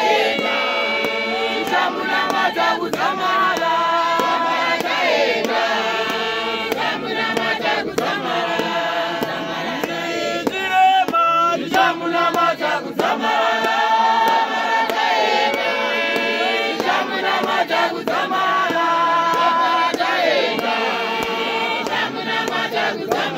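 A group of voices singing a church hymn together.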